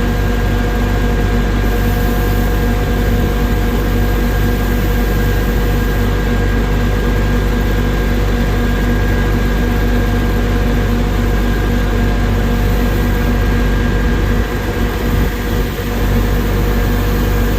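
Truck diesel engine running at a steady speed to power a Serco log loader's hydraulics, a constant rumble with a steady hum on top, dipping slightly near the end.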